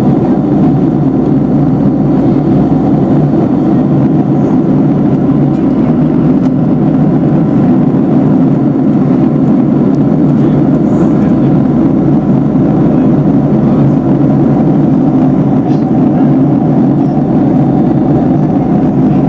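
Steady cabin noise inside a Boeing 757-300 airliner in flight above the clouds: the constant low rush of engines and airflow, unchanging throughout.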